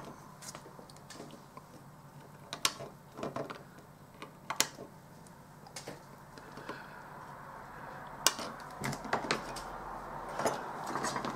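Scattered light clicks and taps of a small circuit board and hand tool being handled on a work mat.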